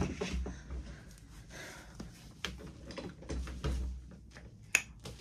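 Scattered knocks and rustling from a person moving and turning close to the microphone, with a sharp knock at the start and another near the end.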